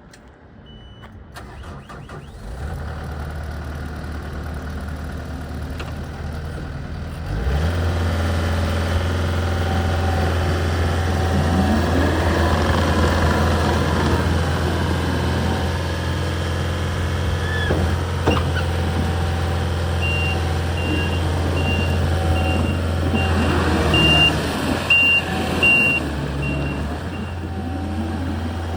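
74 hp Tier 4 diesel engine of a Takeuchi TL10V-2 tracked skid steer loader starting and idling, then stepping up to a higher throttle about seven seconds in. Its engine note rises and falls as the machine drives and works, and a back-up alarm beeps repeatedly near the end.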